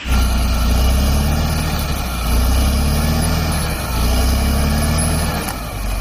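Caterpillar D7R bulldozer's diesel engine running steadily as the machine pushes earth and trees, a deep continuous rumble that swells and eases slightly.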